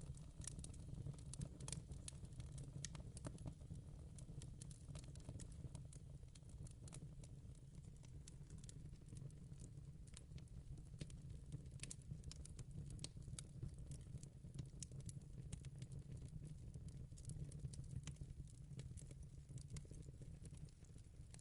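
Quiet wood fire in a fireplace crackling: irregular sharp crackles and pops over a steady low rumble.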